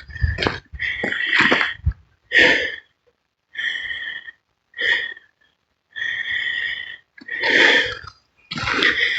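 A hiker breathing hard, with loud breaths in and out about once a second and short pauses between them. There is some low rumble in the first two seconds.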